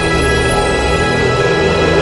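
Trailer music: a held chord of many steady tones, with no voice over it.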